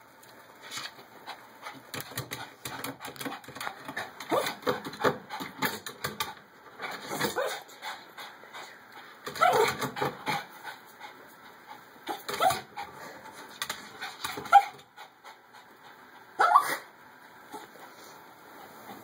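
Shih tzu whining and whimpering in short, repeated cries that bend up and down in pitch, with scattered sharp clicks between them.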